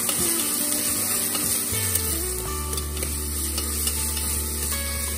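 Sliced onions, ginger, curry leaves and green chillies sizzling in hot coconut oil in a stainless-steel pressure cooker, stirred with a steel ladle.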